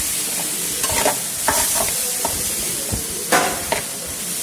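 Spatula stirring potato chunks in a metal kadai over sizzling oil: a series of scrapes and knocks against the pan, the loudest about three and a half seconds in, over a steady frying sizzle.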